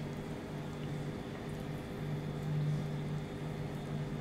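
Steady low mechanical hum with a faint even hiss behind it.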